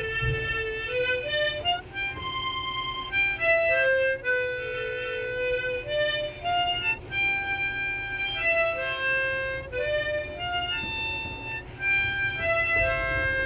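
Background music: a single melody line of held notes stepping up and down.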